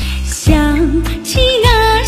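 A woman sings a Mandarin pop ballad into a microphone over a backing track with a steady, heavy bass beat.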